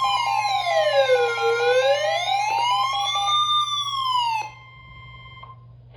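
Electronic siren-style alert tone of an Emergency Alert System broadcast, wailing slowly up and down about once every three seconds over a steady tone and a pulsing beep, signalling the start of a Special Marine Warning. It cuts off sharply about four and a half seconds in, leaving fainter steady tones that stop shortly after.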